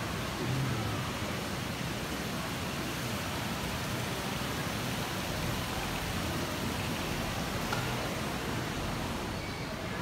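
Steady, even hiss of background ambience inside a large glasshouse conservatory, with a faint murmur of visitors.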